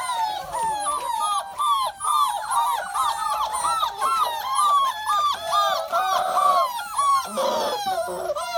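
A litter of deerhound/greyhound x whippet lurcher puppies whining together: short high cries that rise and fall, several a second and overlapping, with a couple of rougher, noisier cries near the end.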